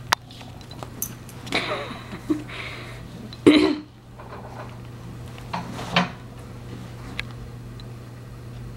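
Scattered knocks and clattering scuffs, the loudest about three and a half seconds in and another near six seconds, over a steady low hum.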